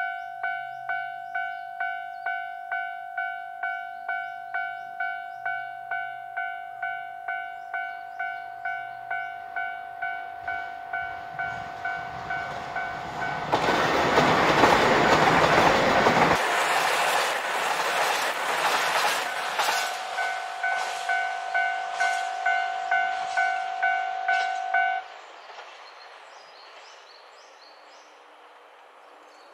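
Railway level-crossing warning bell dinging about one and a half times a second while a diesel express train passes over the crossing. The train goes by loudest about halfway through, its wheels clattering over the rail joints. The bell cuts off suddenly a few seconds before the end.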